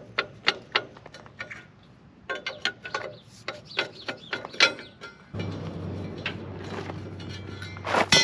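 Irregular metallic clicks and knocks of a steel bar and hand tools working on the bolts of a half-track's steel rear idler wheel. After an abrupt change about five seconds in, a steady low hum sits underneath, and near the end a loud metal clang rings on.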